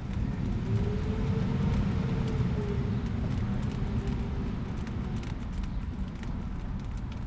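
Low rumble of a motor vehicle running, with a faint tone that rises and then slowly falls over the first few seconds.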